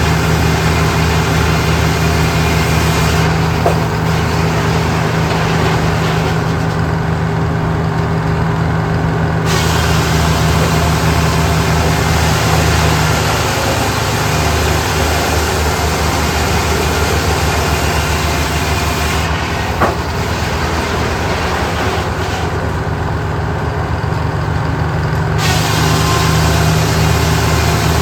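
A large engine running steadily, with a brief click about four seconds in and another near twenty seconds.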